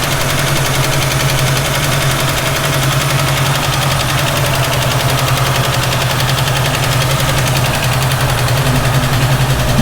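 1967 Ford Mustang engine idling steadily as it warms up, with a pronounced valve tick running through the idle.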